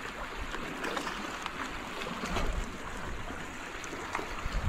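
Small harbour waves lapping and trickling against a sandstone rock shelf, with a low wind rumble on the microphone about two seconds in.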